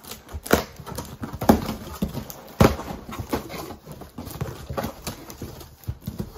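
Hands opening a taped cardboard box: irregular knocks, scrapes and crackles of cardboard and packing tape as the flaps are pulled open. The loudest knocks come about a second and a half and two and a half seconds in.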